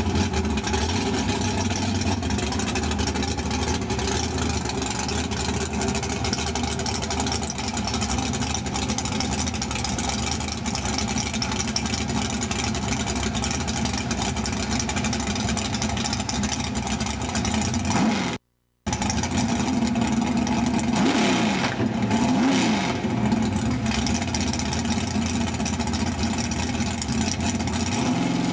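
Drag-racing car's engine idling while it stages at the start line, with a few quick revs in the later part. The sound cuts out completely for a moment about two-thirds of the way through.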